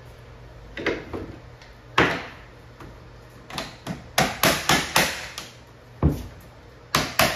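Small hammer tapping vinyl floor planks together to close their joints: a few single knocks, then a quick run of light taps about four to five seconds in, and more taps near the end.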